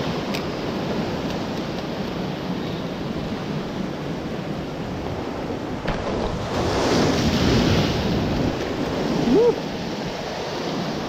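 Sea surf washing against shore rocks, with wind buffeting the microphone; a bigger wave surges in about seven seconds in. A short rising squeak sounds near the end.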